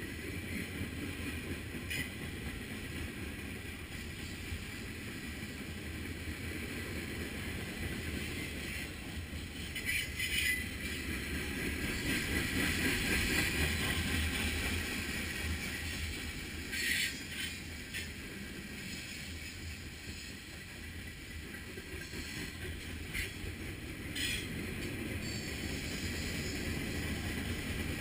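Freight cars of a long mixed freight train rolling past: a steady rumble of steel wheels on rail, swelling a little in the middle, with occasional sharp clanks, the strongest about ten and seventeen seconds in.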